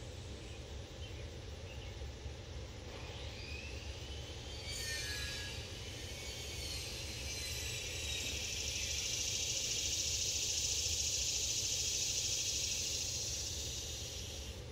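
Outdoor background with a steady low rumble. A few short chirps come a few seconds in, then a high buzzing hiss swells up from about seven seconds in and fades near the end.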